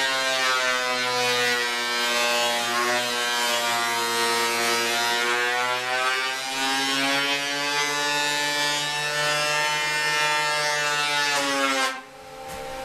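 Delta Shopmaster benchtop thickness planer running, its motor and cutterhead whining steadily as a board is fed through, the pitch dipping a little in places as the cut loads it. It stops abruptly about a second before the end.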